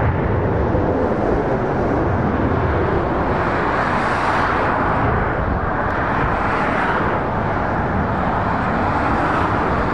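Steady road noise of dual-carriageway traffic: tyres and engines of a Volvo FH lorry, vans and cars approaching, with slight swells as vehicles pass close.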